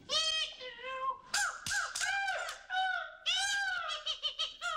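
Punch's high, squeaky puppet voice, done by the puppeteer as a run of short, unintelligible phrases that swoop up and down in pitch with brief breaks between them.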